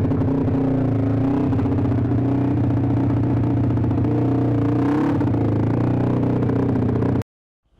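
A vehicle engine running steadily and loudly, cutting off suddenly about seven seconds in.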